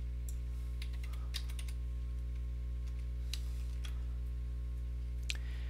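Scattered computer keyboard clicks over a steady low electrical hum.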